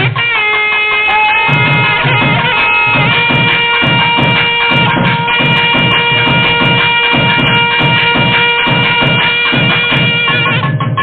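Nadaswaram playing a Carnatic melody in raga Anandabhairavi. It holds long, bright reed notes, with a few slides between pitches, over a steady drone. Tavil drum strokes run beneath in a steady rhythm.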